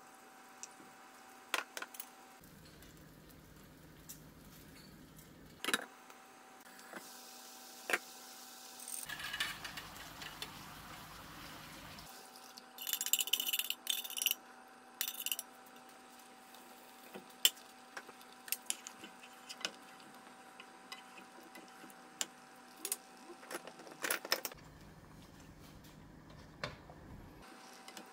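Kitchen handling noises while cooking in a nonstick pan: scattered light clicks and taps of a sauce bottle, measuring spoon and wooden spoon against the pan. There is a hissing stretch about a third of the way in, and a cluster of sharp, bright rattles around the middle as coconut cream is emptied from a tin can. A faint steady hum runs underneath.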